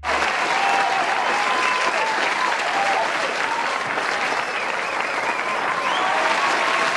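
Audience applauding, breaking out all at once and keeping a steady level, with high voices calling and cheering over the clapping.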